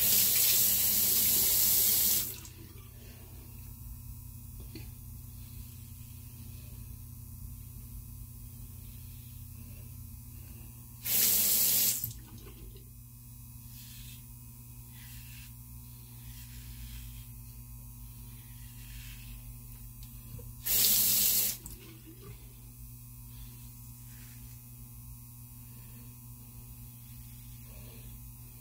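Tap water running into a sink in three short runs about ten seconds apart, the first about two seconds long and the others about a second each, as the razor is rinsed. Between the rinses come faint scratchy strokes of a Blackland Vector single-edge razor through lather and stubble.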